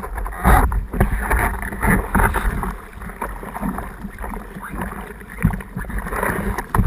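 Seawater splashing and sloshing against a surfboard as a surfer paddles it prone, heard from a camera right at the waterline on the board, with a low rumble and irregular splashes from the hand strokes.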